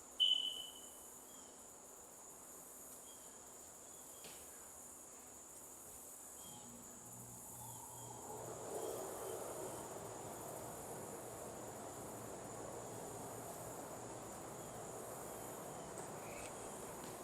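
Steady high-pitched insect chorus of crickets, with a short high chirp just after the start. A soft rushing noise joins about seven seconds in and holds to the end.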